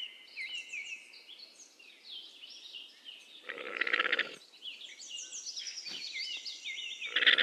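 A donkey gives two short, rough, pulsing vocal sounds, one about halfway through and one near the end, while small birds chirp steadily in the background.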